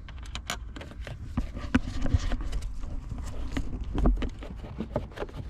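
Irregular clicks, taps and knocks of hand work on a car's plastic interior trim panel as a screw is tightened, with a couple of dull thumps.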